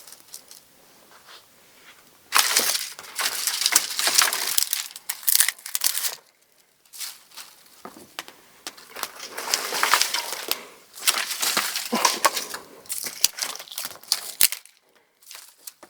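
Dry twigs and kindling being broken and handled while they are laid onto a fire starter: irregular crunching and snapping in two long clusters, with short quiet gaps.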